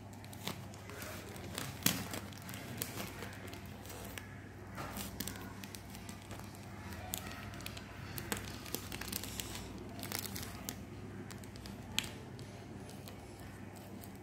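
Plastic courier mailer bag crinkling as it is handled and cut open with scissors, with irregular sharp snips and crackles; the loudest snaps come about two seconds in and near the end.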